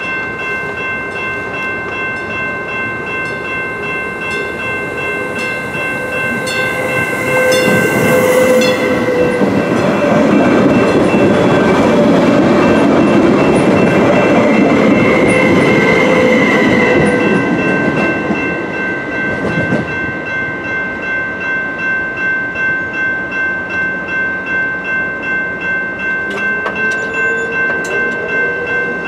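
Passenger train passing close by at a grade crossing, loudest for about ten seconds in the middle as its wheels and cars go by. A crossing bell rings steadily throughout with a quick, even pulse, and keeps ringing after the train has passed.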